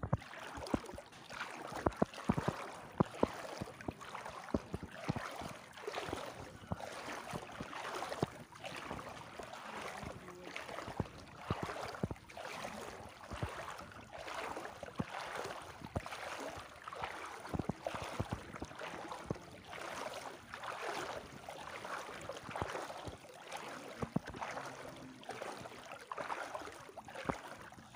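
Floodwater splashing and sloshing in repeated swishes about once a second, as someone wades through it.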